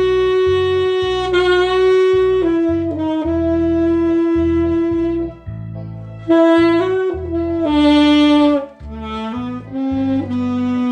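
Tenor saxophone playing a slow melody in long held notes over a backing track with a steady low accompaniment, with a short break between phrases about five and a half seconds in.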